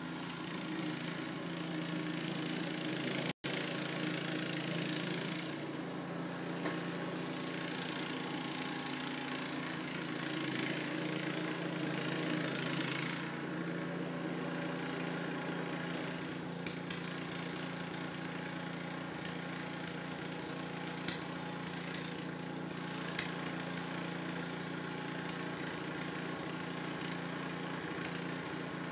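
Steady hum of a running motor or engine, with a hiss above it; the sound cuts out for an instant about three seconds in.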